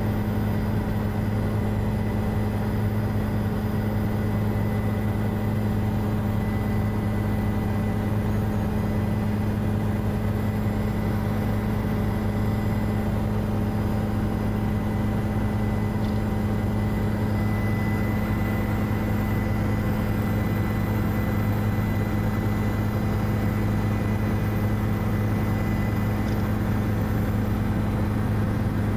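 Helicopter engine and rotor noise, a steady unbroken drone with a deep hum.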